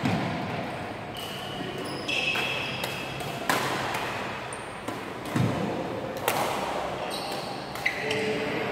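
Badminton rally: a shuttlecock struck by rackets in several sharp hits a second or two apart, with short squeaks from shoes on the wooden court between them, echoing in a large hall.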